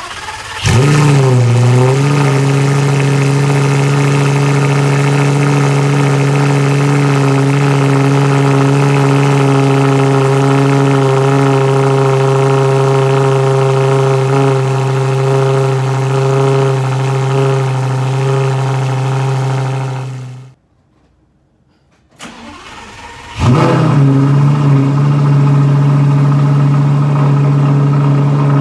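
Lamborghini Gallardo V10 breathing through a bare titanium X-pipe exhaust catches and starts with a quick rev flare, then settles into a steady, loud idle. About twenty seconds in the sound cuts out. After a couple of seconds it is cranked again, catches with another flare, and idles steadily.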